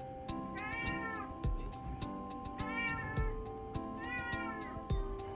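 A calico cat meowing three times, each call rising then falling in pitch, which the owner takes for her still searching for a way out. Background music with a steady beat plays under the calls.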